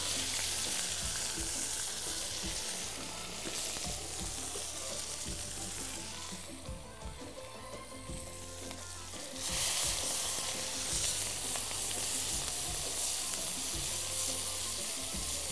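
Safi (rabbitfish) frying in hot oil in a frying pan, sizzling steadily. The sizzle eases for a few seconds past the middle, then comes back louder at about nine and a half seconds.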